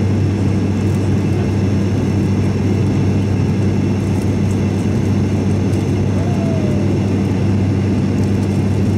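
Cabin drone of an ATR 72 twin-turboprop airliner in flight on its descent: a steady deep hum from the propellers over the rush of engine and airflow noise.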